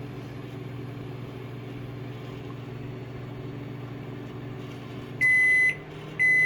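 Microwave oven running off a portable battery power station with a steady hum. About five seconds in, the hum stops and the microwave gives two high beeps about a second apart, signalling that its heating cycle is done.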